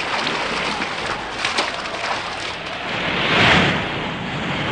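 Sound effects of a stormy sea: a steady rush of heavy water with a few splashes in the first second or so, and a wave surging up loudly about three and a half seconds in.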